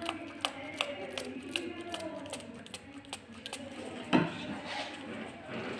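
Trigger spray bottle squirted again and again at a paintbrush to dampen it with water, a quick even run of short spritzes about two to three a second. About four seconds in, a single thump as the bottle is set down on the wooden tabletop.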